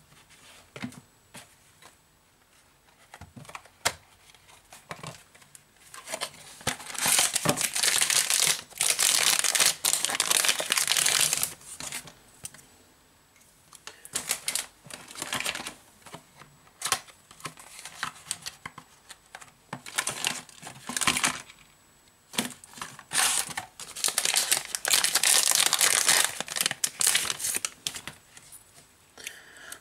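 Hand-handling noises while a smartphone is taken apart: scattered small clicks of plastic and metal parts, then bursts of crinkling, rustling noise a few seconds long.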